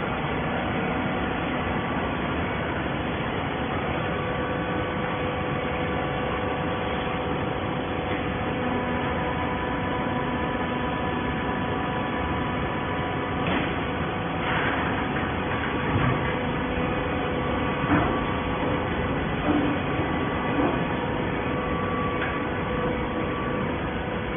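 Baling machine running steadily with a constant motor hum, and a few clunks and knocks in the second half.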